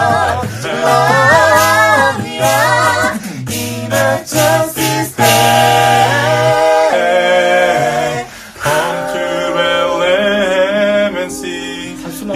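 Several voices singing a cappella in close harmony, with a low bass part held under the upper voices and a brief break about two-thirds of the way through.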